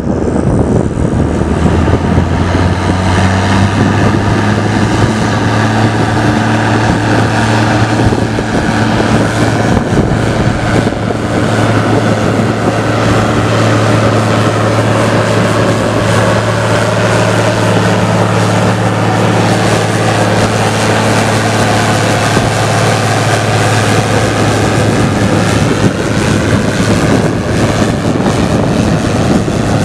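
Case IH 1455 XL tractor's six-cylinder diesel roaring steadily through a stainless-steel exhaust, under heavy load pulling a subsoiler set about 60 cm deep.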